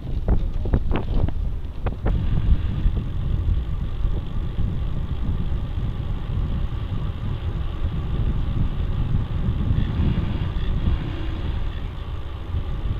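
Wind buffeting a bicycle-mounted camera's microphone over a low road rumble while riding, with a few short knocks in the first two seconds.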